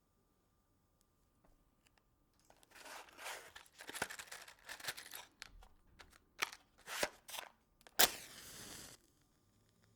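A match is struck on a matchbox striker: a run of rough scratchy scrapes and a few sharp strikes, then a loud sharp strike near the end that catches and flares with a hiss lasting about a second.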